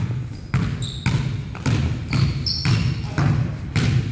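Basketball dribbled hard on a hardwood gym floor, about two bounces a second, each bounce echoing around the hall. Brief high sneaker squeaks on the floor come in between the bounces.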